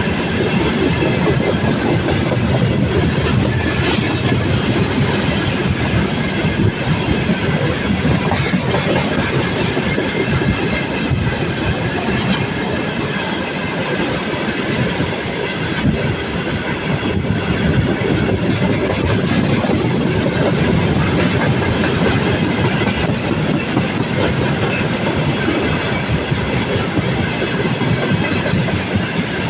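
Freight train of tank cars rolling past, with a steady wheel clickety-clack over rail joints.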